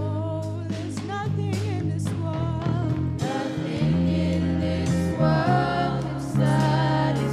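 Gospel worship song: a voice singing over sustained bass notes and instrumental backing.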